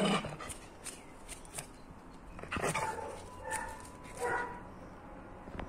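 A Japanese Spitz and a puppy play-fighting: three short barks in the second half, with light scuffling of paws on paving.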